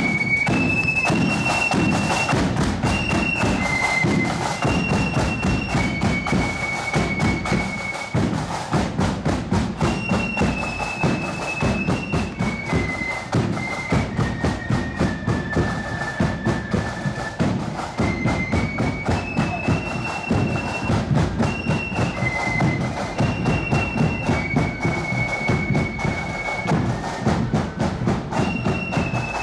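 Marching band playing a march on the move: a single high, shrill melody line of held notes over a steady drum beat.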